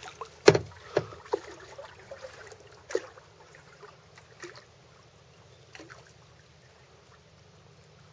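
Kayak paddling: a series of sharp knocks and splashes from the paddle against the kayak's hull and the water, the loudest about half a second in, thinning out after about four seconds.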